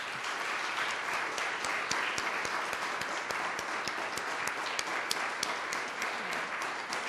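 Audience applauding steadily, individual claps standing out in the sound of the room.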